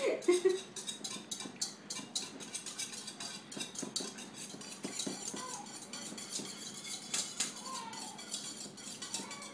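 Metal utensil beating eggs in a metal mixing bowl: quick, uneven clinks and scrapes of metal against the bowl, several a second.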